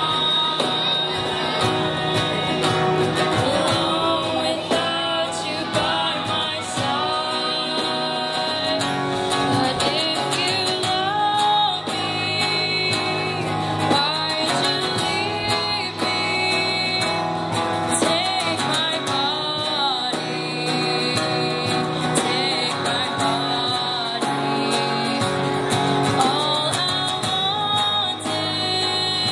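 Live acoustic performance: women singing a melody into microphones, with a strummed acoustic guitar and a cajón played by hand.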